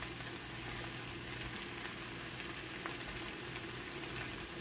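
Fried rice with pork and vegetables sizzling in a hot pan: a steady frying hiss with a few small pops.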